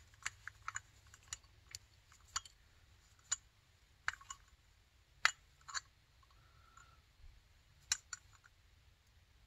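Faint, irregular light clicks and taps of a screwdriver and small metal carburetor parts as an adjustment screw on a snowmobile carburetor is turned in until it lightly seats.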